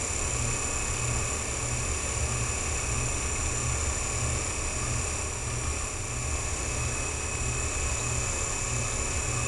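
Electric motor of a rotating display turntable running steadily: a constant hum with a low throb pulsing about twice a second and a faint high whine.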